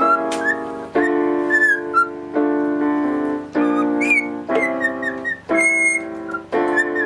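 Parrots whistling and chirping in short rising and falling notes over keyboard music whose sustained chords change about once a second.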